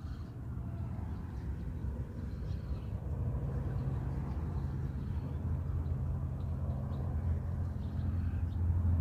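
A low engine drone with a steady pitch, growing gradually louder, over low wind rumble.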